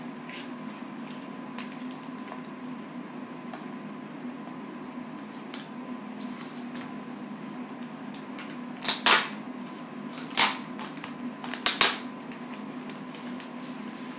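Clear plastic shrink-wrap being peeled off a CD digibook, with three loud crinkling bursts a little over a second apart starting about nine seconds in. A steady low hum runs underneath.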